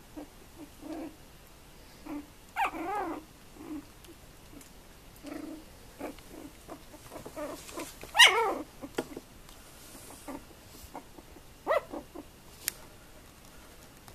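Tibetan terrier puppies playing, giving three short barks about three, eight and twelve seconds in, the middle one loudest, with softer small noises between.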